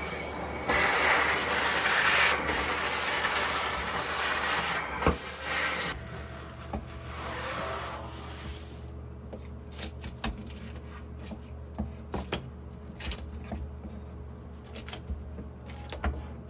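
A rough rubbing noise on wood for about six seconds, then a string of light clicks and knocks of wooden pieces being handled, over a steady low hum.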